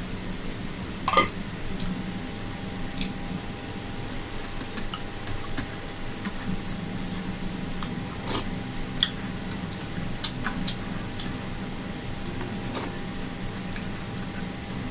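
Eating rice by hand: fingers squishing and gathering rice on a plate, with chewing and short mouth clicks scattered throughout, a sharper click about a second in. A steady hum runs underneath.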